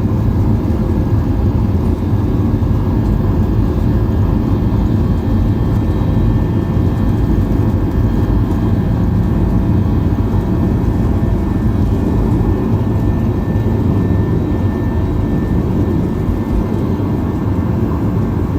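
Steady, loud rumble of an airliner's jet engines and airflow heard from inside the passenger cabin, with a faint whine on top.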